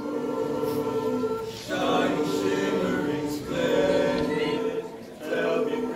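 Mixed a cappella choir of women's and men's voices singing held chords in phrases, with brief breaks between phrases near two seconds in and again about five seconds in.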